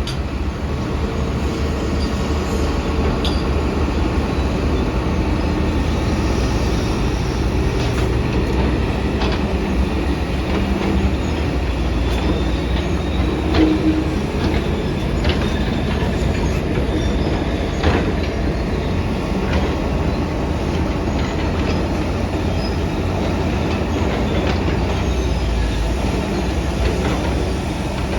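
Heavy diesel construction machinery running steadily, with scattered sharp metallic clanks over the low engine drone.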